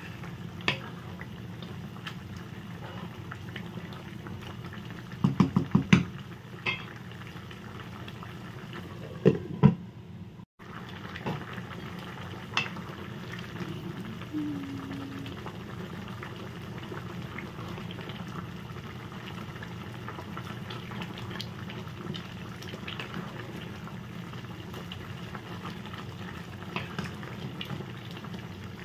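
Sotanghon noodle soup bubbling at a simmer in a pan while a wooden spatula stirs it. The spatula knocks against the pan in a quick run of four strikes about five seconds in, and twice more near the ten-second mark.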